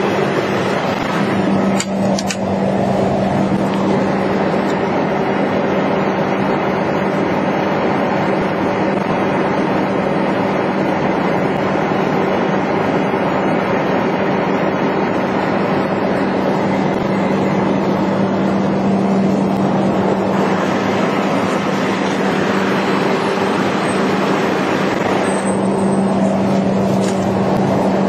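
Utility bucket truck's engine running steadily to power the aerial boom, with a constant low hum.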